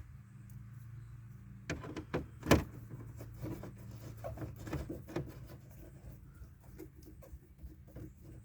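Scattered small clicks and knocks of a hand tool working the 7 mm screws out of a car's dash pad, with one sharp knock about two and a half seconds in.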